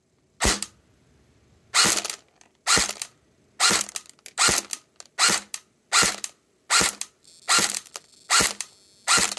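Valken ASL+ airsoft electric rifle firing single shots on semi-automatic through a chronograph, about eleven shots a little under a second apart, each a short sharp snap. The readings show about 300 fps on 0.20 g BBs.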